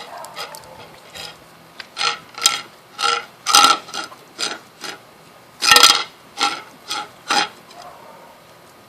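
A dog eating yogurt-frosted cake: a run of about ten short, sharp eating strokes, roughly two a second, from about two seconds in until near the end.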